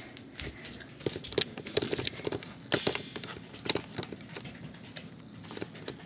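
Handling noise from a handheld camera being moved around: irregular light clicks, taps and rustles, with a sharper click near the middle.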